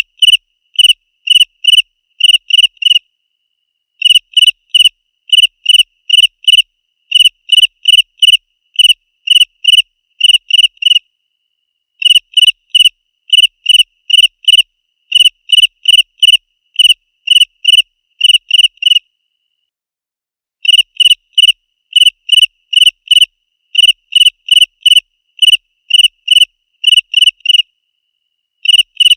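Cricket chirping loudly in a steady, even rhythm of about two high chirps a second. The runs of chirps last seven or eight seconds and stop for about a second between them.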